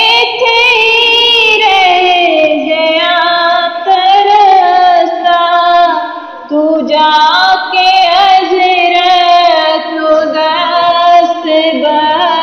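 A woman singing a Punjabi naat, a devotional song in praise of the Prophet Muhammad, drawing out long ornamented notes between the lines of the verse.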